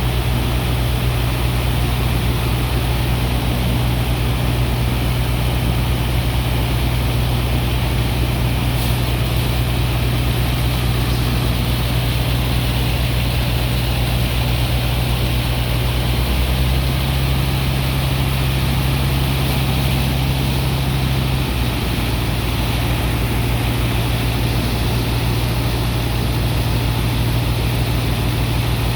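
A sand dredger's diesel engine and pump running steadily while unloading sand, a deep engine drone under a dense rushing noise. The engine note shifts slightly for about five seconds past the middle.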